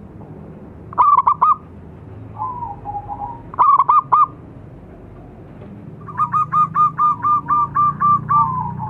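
Zebra doves (perkutut) cooing: a short burst of rapid notes about a second in and another near four seconds, a softer wavering coo between them, then a long even series of about a dozen quick notes starting about six seconds in.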